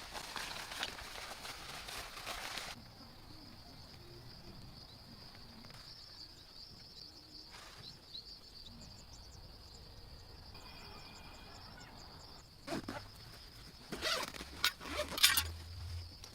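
Night insects, crickets or katydids, trilling in a steady high chorus. Rustling during the first three seconds and again, with sharp knocks and crackles, in the last few seconds.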